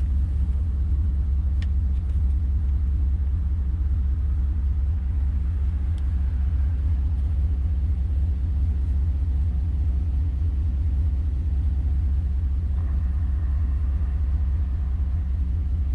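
A 2001 truck's 5.3-litre LS V8 engine running steadily with a low rumble, running poorly with a misfire.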